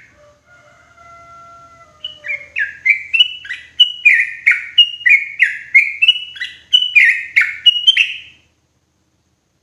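Yellow-vented bulbul (trucukan) singing a loud, quick run of bubbly falling notes, about three a second. The run starts about two seconds in and stops abruptly about two seconds before the end.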